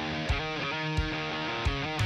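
Background music: guitar over a steady drum beat of about one and a half hits a second.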